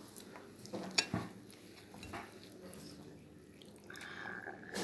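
Faint clinks of a utensil on a plate while fried chicken with gravy is being eaten, with a few light taps close together about a second in.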